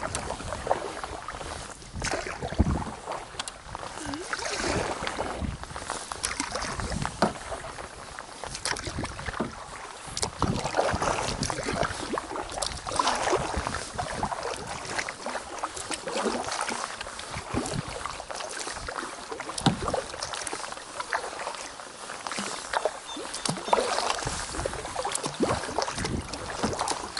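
Double-bladed paddle stroking a canoe along calm water: the blades dip and pull every second or two, with splashes and drips. A few sharp clicks come between the strokes.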